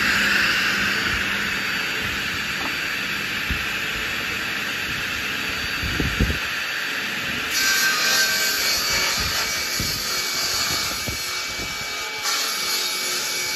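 Hitachi PU150FA universal woodworking machine running steadily while a block of timber is fed along its fence. The noise turns harsher and hissier about halfway through and again near the end as the cutter works the wood.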